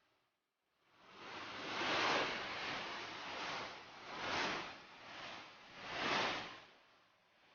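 Rushing noise of a flash-flood torrent pouring between rocks, swelling and fading four or five times before dying down near the end.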